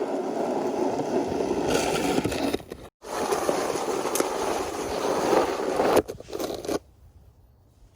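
Snow shovel scraping along the driveway pavement as snow is pushed clear: two long scrapes of about three seconds each, then a short one, after which it goes quiet.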